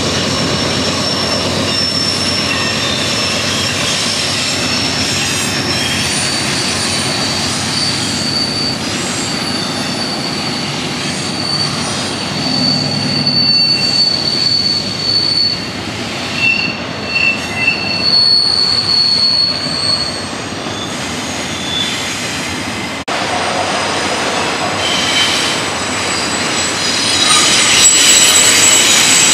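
Eastbound BNSF double-stack intermodal freight train rolling past, its wheels squealing in thin, high tones that come and go on the curve over the steady rumble of the cars. The squeal is loudest in the middle and near the end.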